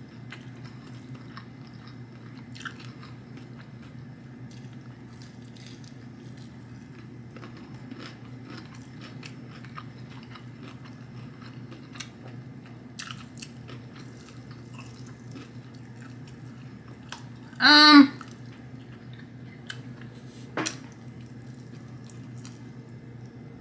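Close-up chewing and biting of a sauce-coated fried chicken drumstick: faint, scattered small mouth clicks and bites over a steady low room hum. About eighteen seconds in, a short, loud voiced hum comes from the eater.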